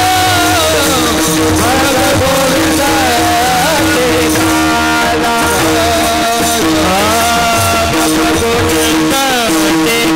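Warkari devotional chant: male voices singing a gliding melody together while many pairs of taal, small brass hand cymbals, are struck in a steady rhythm. A steady held note sounds beneath the singing.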